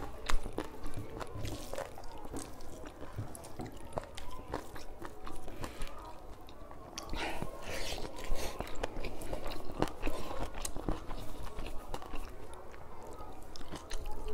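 Close-up eating sounds of a person eating rice by hand: chewing and lip smacks with many short, sharp clicks, and fingers working the rice on the plate.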